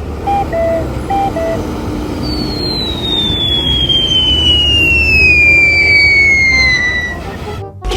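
Low vehicle engine rumble, with a short two-note horn call sounded twice near the start. Then a long whistle falls steadily in pitch for about five seconds.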